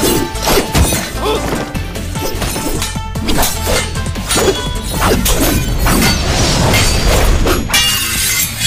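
Sword-fight sound effects: repeated blade clashes and hits over an action music score.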